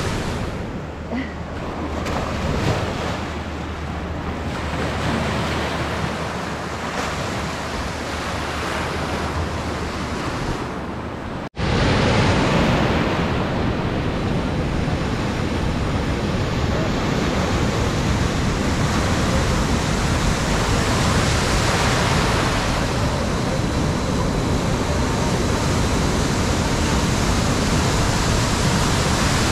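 Waves breaking and washing through an artificial surf wave pool, with wind buffeting the microphone and a steady low hum under the first part. About a third of the way in the sound cuts abruptly to a louder, steadier stretch of surf noise.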